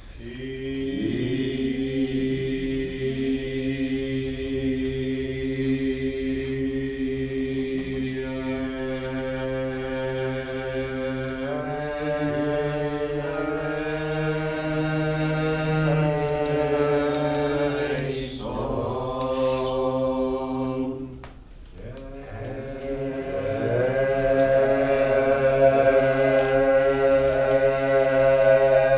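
A group of voices singing a cappella in a slow chant, holding long notes that shift pitch every few seconds. The singing drops away briefly about 21 seconds in, then comes back louder.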